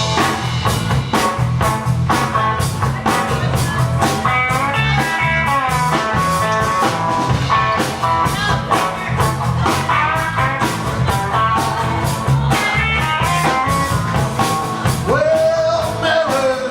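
Live blues-rock band playing an instrumental intro: a drum kit keeping a steady beat under guitar lines.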